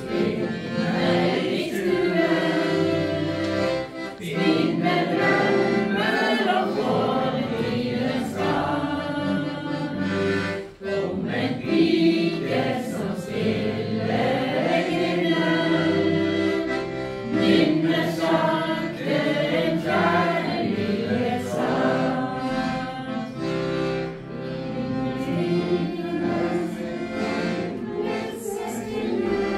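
A group of people singing a song together to accordion accompaniment.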